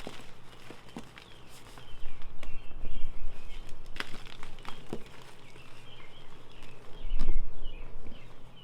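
Ader chalk blocks mixed with holi powder and glitter being mass-crushed: crunchy cracks and crumbling, loudest around two to three seconds in and again near seven seconds. Birds chirp in the background.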